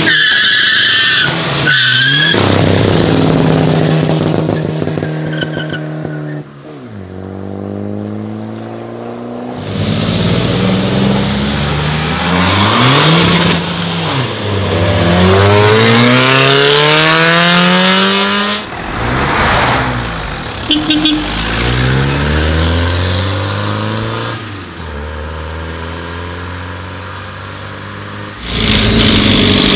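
A string of tuned diesel cars accelerating hard away one after another under heavy throttle, the kind of run that sends out black smoke. Engine notes rise in pitch through the gears and drop at each shift, and the sound cuts from one car to the next every few seconds.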